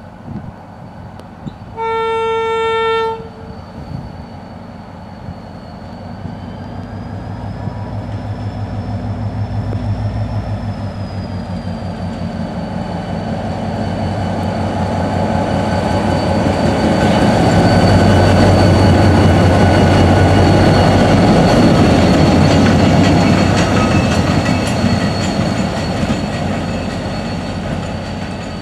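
NIR 111 Class diesel locomotive sounding one horn blast about two seconds in. Its EMD V12 two-stroke engine then grows louder as it approaches and passes hauling the Waterjetter rail head treatment train, with wheel rumble over the rails, and fades slightly near the end.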